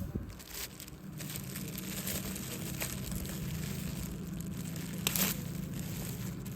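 Wood bonfire crackling, with irregular small pops and one louder snap about five seconds in.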